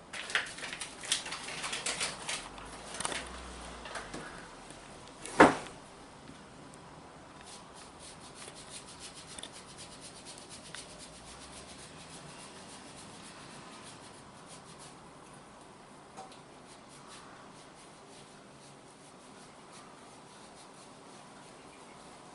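Parmesan being grated on a fine rasp grater: quick, faint scraping strokes. Before the grating starts there are a few clatters and one sharp knock about five seconds in.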